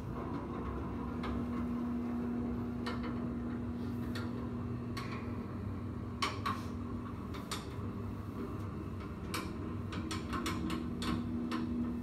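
A steady hum with scattered light clicks and taps, several coming close together near the end.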